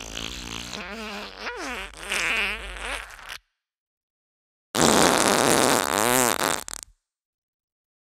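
Fart sound effects: a long fart with a wavering, sliding pitch trails off about three and a half seconds in. After a moment of dead silence, a second, louder and raspier fart lasts about two seconds.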